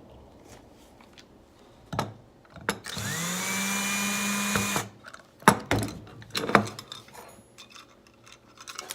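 A small cordless power driver spins up quickly and runs steadily for about two seconds, backing out a screw from a hard drive. It is framed by sharp clicks and knocks of handling the drive and tool before and after.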